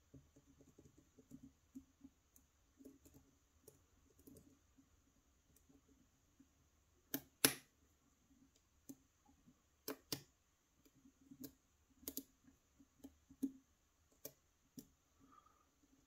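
Faint, irregular clicking and ticking of a lock pick working the pins of a challenge-lock cylinder under tension, with a sharper click about halfway and several more through the second half.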